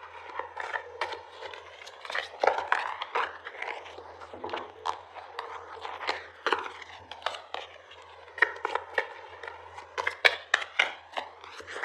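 A deck of tarot cards being shuffled and handled: irregular papery snaps, flicks and rustling. A faint steady low hum runs underneath.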